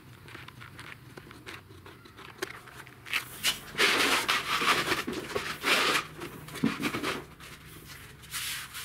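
Thin vinyl flooring sheet rustling and crinkling as it is flexed and pushed down flat onto a concrete floor, loudest in the middle, after a few seconds of faint handling ticks.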